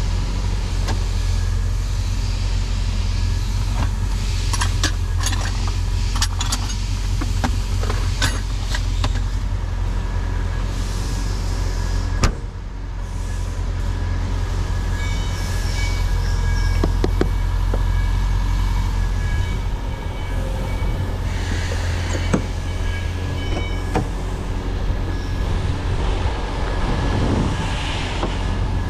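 A 1983 Toyota Corolla KE70's 1.3-litre carburetted engine and road noise during a drive, a steady low drone. Scattered light clicks and rattles come through, with one sharp knock about twelve seconds in; after the knock the sound drops briefly and then builds again.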